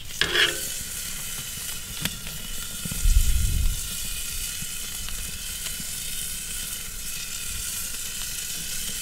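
Pepper-crusted beef Tafelspitz sizzling steadily as its fat side sears on a grill grate over very hot charcoal. A brief low rumble comes about three seconds in.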